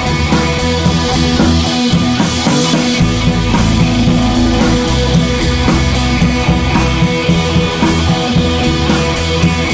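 Rock music with guitar and drums, loud and steady.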